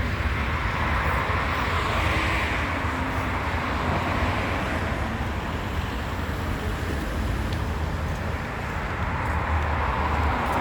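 Freight train of Eas open wagons rolling past: a steady rumble of steel wheels on the rails with a continuous rushing hiss.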